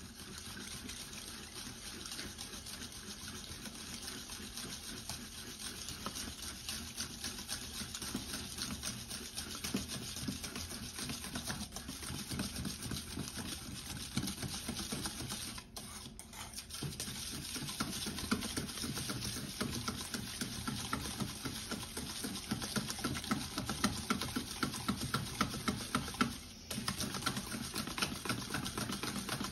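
Wire whisk beating a runny mixture in a stainless steel bowl: fast, even rattling clicks of the wires against the metal, with a wet slapping. It breaks off briefly about halfway through and again near the end.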